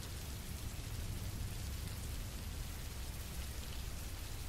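A low, steady hiss like rainfall with a low rumble beneath it, an ambience bed with no distinct events.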